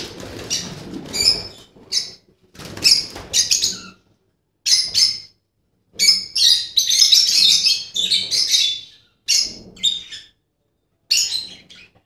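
Lovebirds chirping and screeching in short, shrill bursts. The calls come thickest and overlap between about six and nine seconds in.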